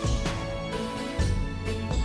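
Background music with a steady beat and strong bass pulses.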